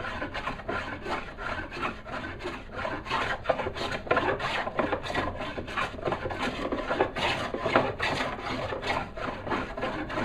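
Hand smoothing plane, a type 11 Stanley No. 4C with a corrugated sole, shaving a walnut board in quick short strokes, about three a second. It is taking thin whisper shavings over a patch that still needs smoothing.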